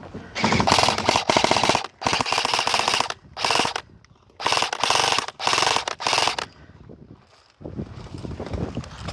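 Airsoft rifle firing repeated short full-auto bursts, a rapid stream of clicks each time, for the first six seconds or so.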